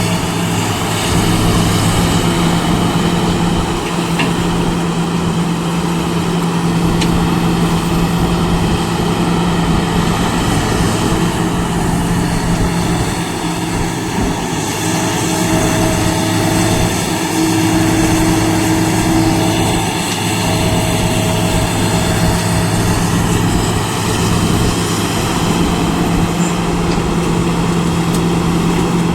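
Heavy construction machine's diesel engine running steadily and loudly close by, a few higher tones fading in and out over it midway.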